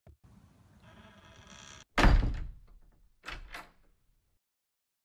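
A heavy thud about two seconds in, followed a second later by two quick lighter knocks, then silence.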